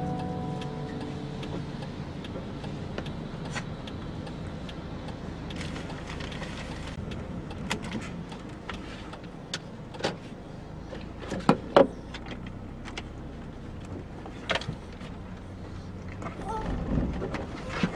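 Car interior noise: a steady low rumble of the engine and road inside the cabin, broken by scattered sharp clicks and knocks, the loudest a pair about two-thirds of the way through.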